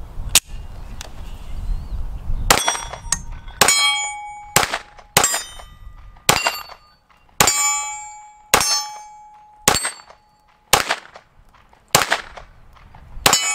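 Lone Wolf Arms LTD19 9mm pistol firing about a dozen shots at a steady pace of roughly one a second, starting a couple of seconds in. Many shots are followed by a ringing ping, as of steel targets being hit.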